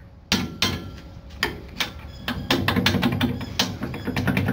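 Metal knocks and rattling as a stiff steel pin is worked loose from a steel bracket on a camper's rear rack: a few separate sharp knocks, then from about halfway a fast run of clicks and rattles.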